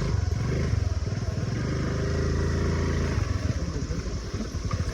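Motor scooter engine running at low speed: it evens out into a steady hum about halfway through and turns to an uneven putter near the end.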